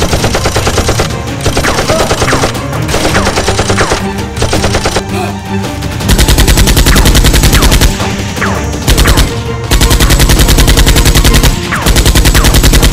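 Dubbed-in machine-gun sound effects over background music: scattered fire at first, then three long, very rapid bursts in the second half, the loudest part.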